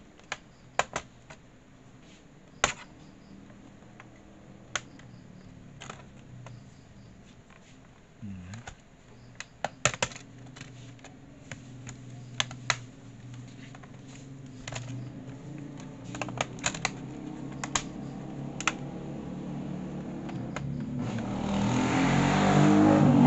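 Plastic clips of a laptop's bottom cover panel clicking and snapping as it is pressed back into place, in scattered sharp clicks. A motorcycle engine rises in pitch and grows loud near the end.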